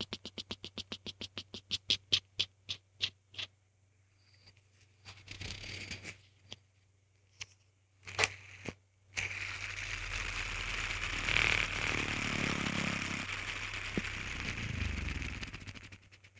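Hand spinner spinning down: a run of ticks that spread further apart and stop a few seconds in. Then a few single clicks of handling, and for most of the second half a steady rushing noise.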